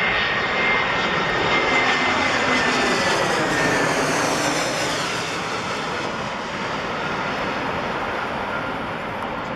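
Airbus A320 airliner's twin jet engines passing low overhead on approach: a steady jet roar with a high whine that falls in pitch as the aircraft goes over, easing off a little after the first five seconds.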